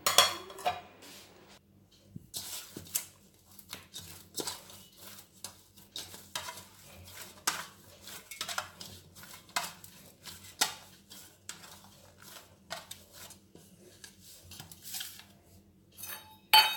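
Stainless steel bowls and a steel plate being handled, with scattered light clinks, taps and scrapes of metal on metal and on a stone counter, and a louder clatter near the end.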